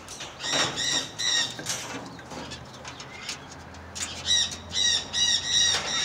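Sulphur-crested cockatoo giving short, high, repeated calls: three in quick succession about half a second in, then four more from about four seconds in.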